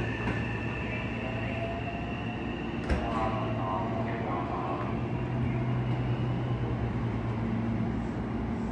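Hankyu electric train pulling away from the platform with a motor whine that rises gently in pitch, over the steady hum of a train standing at the platform. A sharp click comes about three seconds in.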